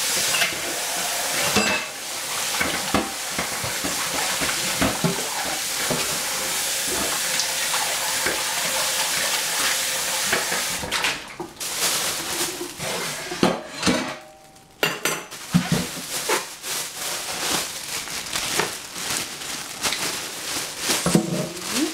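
Kitchen knife cutting vegetables on a cutting board: sharp knocks several a second in the second half. For the first half there is a steady hiss with scattered clicks and clinks of kitchen utensils.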